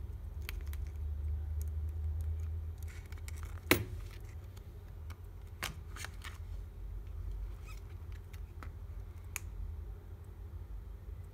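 Small clicks and taps from handling an opened iPhone 6s as it is put back together: the display flex connectors are pressed onto the logic board and the screen assembly is pressed shut. One sharp click about four seconds in, a few lighter clicks later, over a steady low hum.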